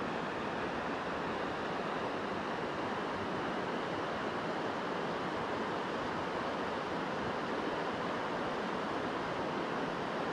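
River water rushing steadily, an even hiss with no breaks.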